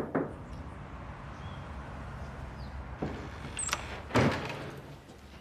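Car doors shutting: two quick thumps at the start and a louder one about four seconds in, over a low steady rumble of street traffic.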